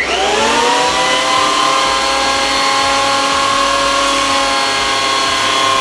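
SIP 8-inch planer/thicknesser switched on: its 2 hp motor and twin-knife cutter block spin up with a rising whine in about half a second. It then runs steadily at full speed (8500 rpm cutter block) with no wood being cut.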